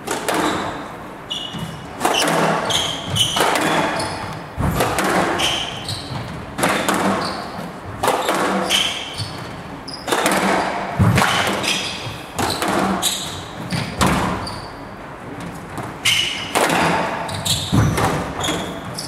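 Squash rally on a glass court: sharp knocks of racket strikes and the ball hitting the walls about once a second, with rubber shoe soles squeaking on the court floor between shots.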